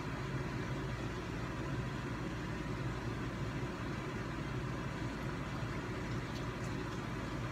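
A steady low background hum with no speech, and a few faint ticks near the end.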